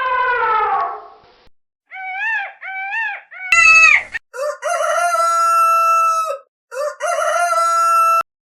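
Rooster crowing: a few short rising-and-falling notes, then long crows held at a steady pitch in the second half.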